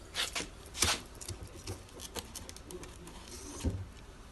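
Scattered light clicks and taps of a clutch disc and a measuring tool being handled while the disc's thickness is measured. Several clicks come close together in the first second, with a duller knock near the end.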